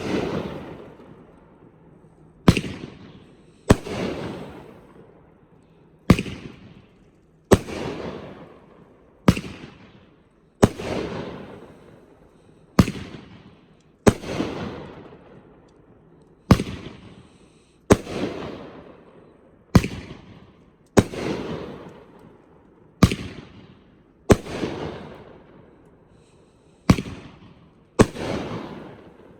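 A 16-shot 500 gram consumer firework cake (Pyro Demon's Pyro Appetite) firing shot after shot, one sharp bang every one and a half to two seconds, each trailing off in a fading tail.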